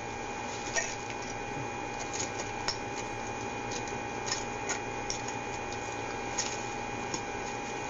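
Steady electrical hum with a constant whine from a surveillance camera's audio feed, under a few irregular light clicks and taps from a cash register as a small sale is rung up at the counter.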